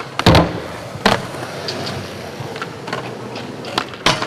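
Skateboards on concrete: a loud board landing clack shortly after the start, another hard clack about a second in, scattered lighter clicks, and a sharp clack near the end, over the steady roll of urethane wheels.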